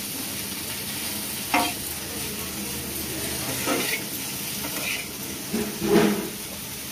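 Chopped okra frying in oil in a metal pan with a steady sizzle, while a steel spoon stirs it and scrapes against the pan a few times, loudest near the end.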